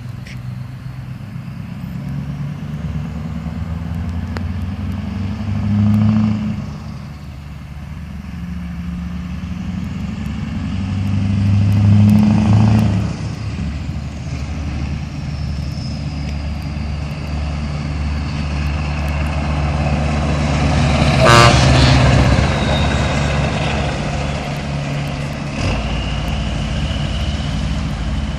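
Diesel truck engine revving up twice, then a rapid burst of exhaust popping (klapperen) about three-quarters of the way through as the truck pulls away.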